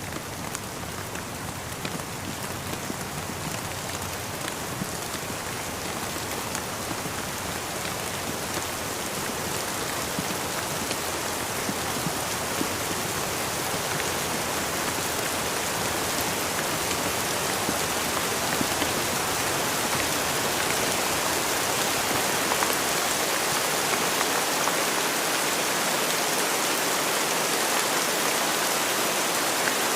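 Steady rain falling, an even hiss dotted with fine drop ticks, growing gradually louder.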